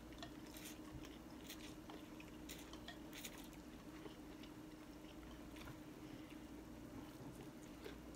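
Faint sounds of people eating pho: soft slurping and chewing with small scattered clicks of chopsticks and spoons, over a steady low hum.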